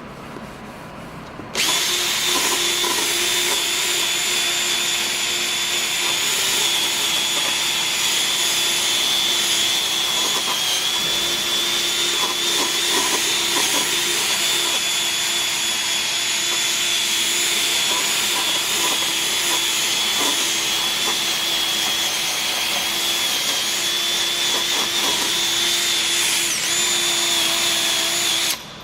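Electric drill spinning a buffing pad to polish rubbing compound into a plastic headlamp lens, the final polishing stage of a headlight restoration. The motor starts about a second and a half in, runs with a steady whine, and cuts off just before the end.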